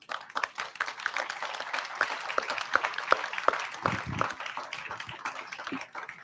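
Applause: many hands clapping at once in a dense patter that thins out near the end.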